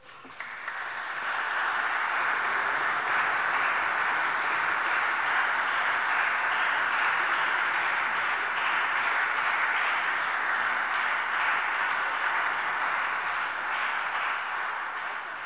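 Audience applauding, swelling up within the first second or two, holding steady, and fading out near the end.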